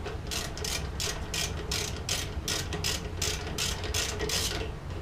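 Ratchet with a number 6 Allen bit clicking in short back-and-forth strokes, about two to three a second, as the front brake caliper pad pins are snugged down.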